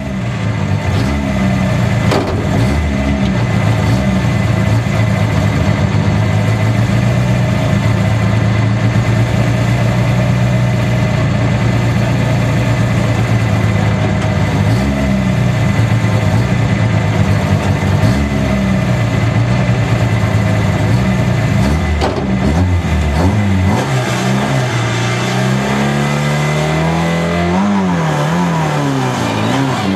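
Lada 21074 Group A rally car's four-cylinder engine, heard from inside the cabin, held at steady raised revs at the stage start. Near the end the revs rise and fall repeatedly as the car pulls away.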